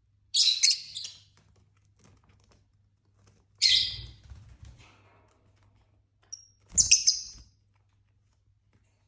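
Lovebird calls: three loud, shrill, high-pitched chirps, each under a second long, coming about three seconds apart.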